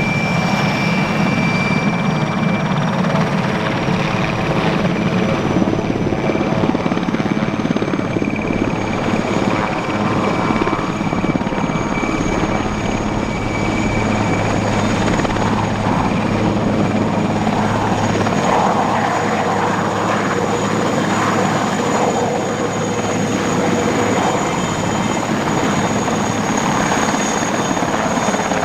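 Aérospatiale SA 330L Puma helicopter taking off and turning: loud, steady rotor noise under the high whine of its twin turboshaft engines. The whine climbs slightly in pitch over the first several seconds.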